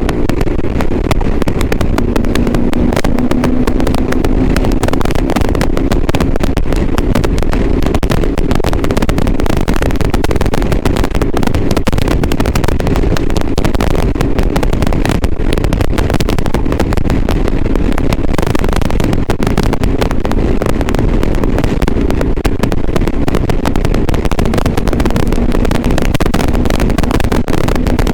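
Motorcycle engine running at fairly steady revs while riding, recorded through an action camera's external microphone. It is heavily overlaid with constant wind rumble and crackle, the bad sound the recording shows.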